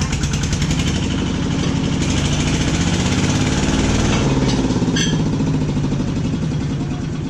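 Compact tractor engine running steadily under load as the tractor drives through loose sand that its wheels slip in, growing louder toward the middle and then easing off. A sharp click about five seconds in.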